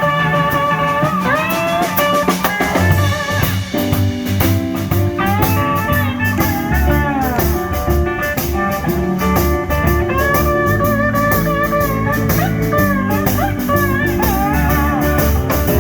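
Electric blues band playing an instrumental passage: guitar, bass and drum kit, with a lead line of notes that bend and slide in pitch.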